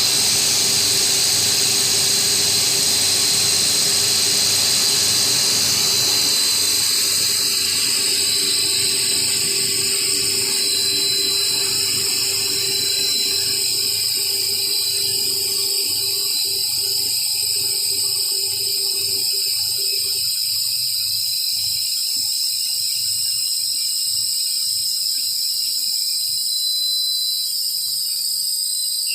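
CNC milling machine spindle running at high speed with a steady high-pitched whine over a hiss; a lower hum in the sound stops about two-thirds of the way through.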